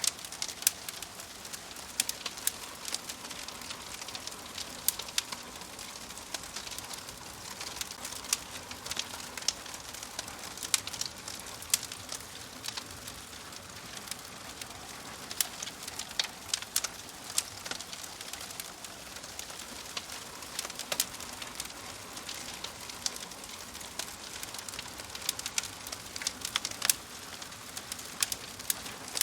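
Wood fire crackling in a fireplace: a steady hiss of burning logs with frequent sharp, irregular pops and snaps.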